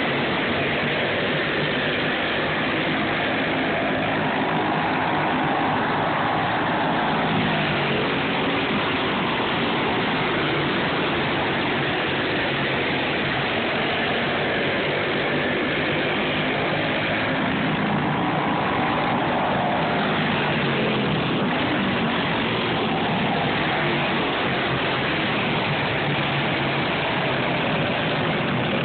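Several racing go-kart engines running and revving together as a pack of karts laps the track. The sound swells and its pitch rises and falls as karts pass, about six seconds in and again around twenty seconds in.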